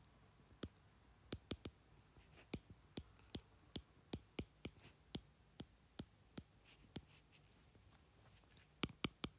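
Stylus tapping and clicking on a tablet's glass screen during handwriting: a scatter of faint, sharp clicks, a few each second.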